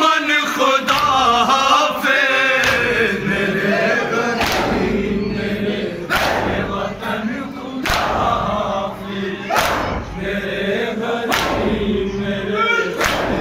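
A group of men chanting a Shia noha lament in unison, led by a reciter. From about four seconds in, the mourners strike their chests together in matam, a sharp slap about every one and three-quarter seconds that keeps time under the chant.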